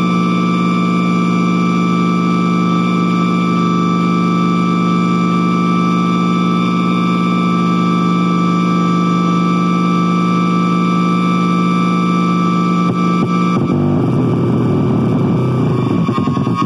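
Loud electronic noise drone: a dense, steady layer of many held tones that turns into a rougher, hissier texture about fourteen seconds in.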